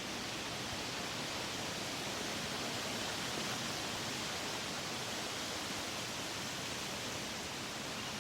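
Strong wind blowing, a steady rushing hiss with no gusts or breaks.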